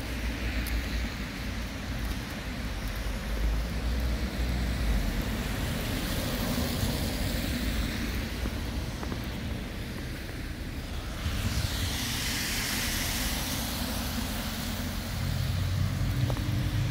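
Road traffic on a slushy, snow-covered street, with wind rumbling on the microphone. One car passes with a rush of tyre noise about eleven seconds in, and another vehicle's engine hum grows louder near the end.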